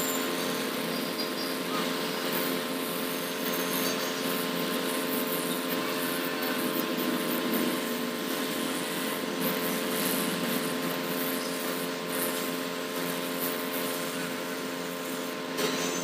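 Hot-air SMD rework gun blowing steadily, a constant hiss with a fan hum, heating a mobile phone's charging jack to desolder it from the circuit board. The airflow cuts off suddenly near the end.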